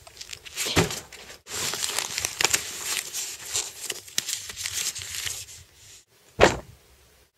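Rummaging through a fabric backpack: the bag and papers rustle and crinkle as a binder is pulled out. A single thump comes about six and a half seconds in, the loudest sound.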